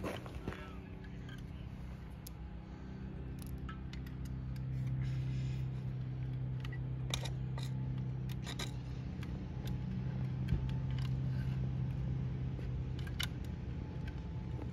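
Hand caulk gun squeezing construction adhesive onto concrete wall blocks: scattered clicks of the trigger and plunger rod. Under them runs a steady low hum that gets louder about four seconds in.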